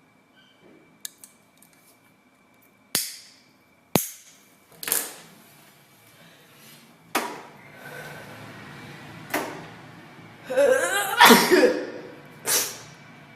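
A woman sneezing over and over: about seven sudden, sharp sneezes spread over ten seconds, with a longer voiced stretch shortly before the last one.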